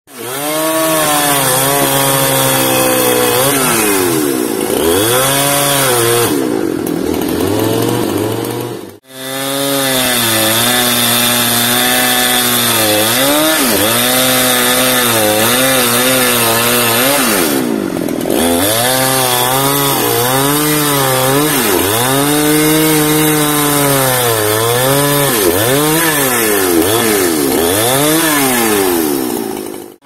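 Large two-stroke chainsaw cutting through the limbs of a felled teak tree, its engine note sagging and climbing back over and over as it works through the wood. The sound breaks off briefly about nine seconds in.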